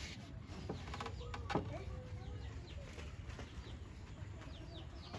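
Birds calling, with short high chirps repeating over a low background rumble. There is one sharp knock about a second and a half in.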